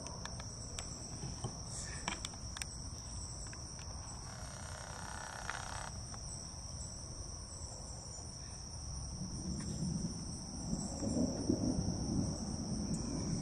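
A steady, high-pitched chorus of summer insects. From about nine seconds in, a low rumble of distant thunder swells under it and fades toward the end.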